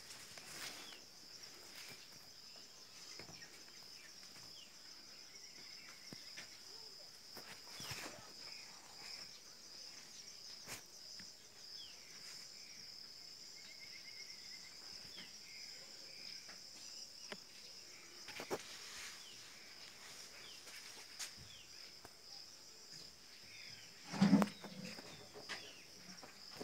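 Steady, high-pitched chirring of crickets, with a few scattered clicks and a short low call near the end.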